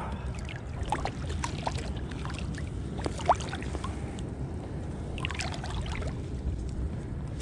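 Handling noise: clothing rustling against a body-worn camera, with a steady low rumble and scattered clicks and knocks of gear on a plastic kayak. The sharpest knock comes about three seconds in.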